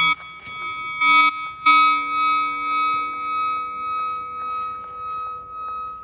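Background music: a sustained instrumental chord struck three times in the first two seconds, then ringing on with a slow, even swell in loudness.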